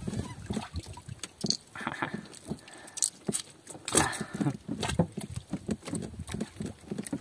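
A squid hooked on a rinta squid jig being hauled up by hand line and brought into a small boat: a run of irregular knocks, taps and splashes, the sharpest about four seconds in.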